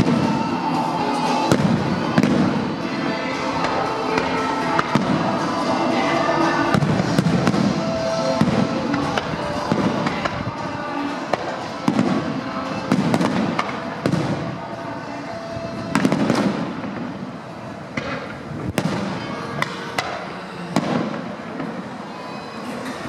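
Fireworks display: aerial fireworks bursting with many sharp bangs in quick succession, thinning out over the last few seconds, with music playing behind them.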